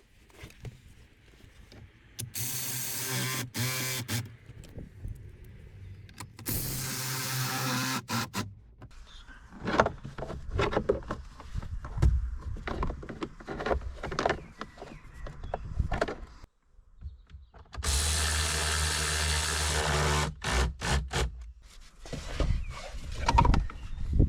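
A small electric motor runs three times for about two seconds each, with clicks and knocks of handling in between.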